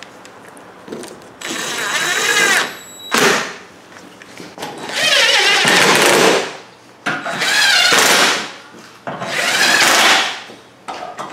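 DeWalt 20V cordless power tool driving the screws of a plastic front mud guard home, running in about five separate bursts of a second or two each with short pauses between.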